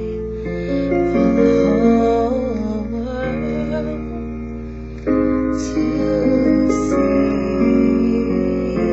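A woman singing over sustained piano chords, her voice wavering on held notes.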